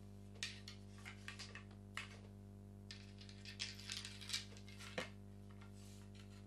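Scattered light clicks, taps and scrapes as finishing rings and a reel fitting are handled and slid along a carbon fishing rod blank, ending about five seconds in.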